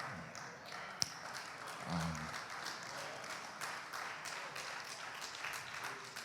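A congregation clapping, a steady patter of many hands, with one sharp clap standing out about a second in.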